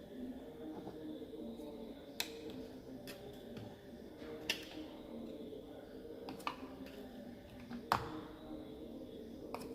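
Sharp metal clicks and taps, about five spread irregularly, from lever bars working at the gear selector arm on a bench-mounted gearbox. A low steady hum sits underneath.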